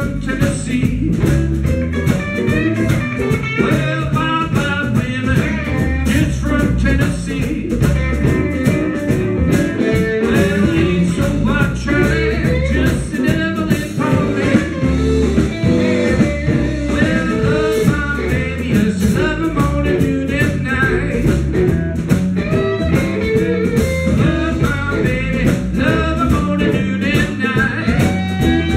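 Live blues band playing, with guitar lines to the fore over a full rhythm section.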